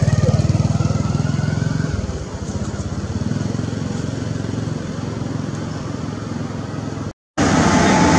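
Small engine, like a motorcycle's, running steadily with a pulsing low hum. It drops in level about two seconds in and cuts out briefly near the end, then comes back louder.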